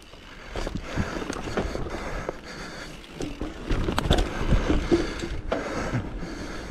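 Mountain bike rolling fast down a dirt forest trail: continuous tyre noise on loose dirt and pine needles, with frequent knocks and rattles as the bike hits bumps.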